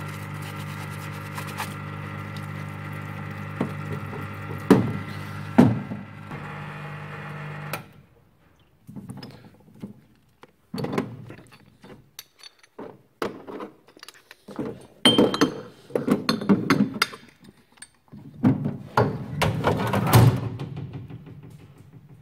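A steady machine hum, broken by a couple of sharp knocks, stops suddenly about eight seconds in. Then come irregular scrubbing and clunking as metal rear-shock parts are scrubbed and handled in a soapy wash sink.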